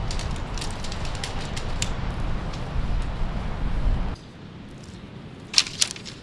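Strong wind buffeting the microphone, with scattered light ticks and crackles, cutting off abruptly about four seconds in to a much quieter background with a few sharp clicks.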